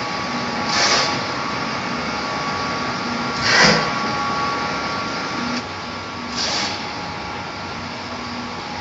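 Egg tray production line machinery running with a steady hum, and a rushing whoosh of air that swells and fades three times, about every three seconds.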